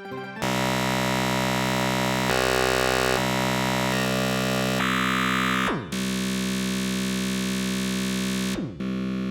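Dense MIDI synthesizer music, a 'black MIDI' rendering of the Messenger ringtone with some 600,000 notes, sounding as a thick wall of sustained chords that shift every second or so. It has two quick downward pitch sweeps, one just past the middle and one near the end.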